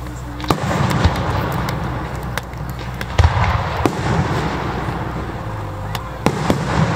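Aerial firework shells bursting in the sky with about six sharp bangs, the loudest about three seconds in and two more close together near the end, over a continuous low rumble.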